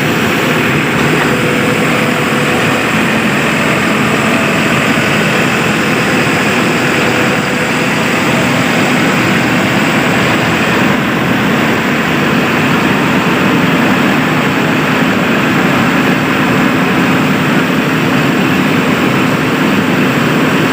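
Heavy diesel engine running steadily at a constant pitch.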